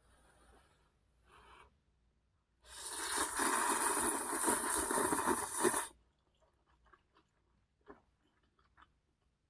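Ramen noodles slurped in one long, loud pull of about three seconds, after two faint short breathy sounds. Light, scattered chewing clicks follow.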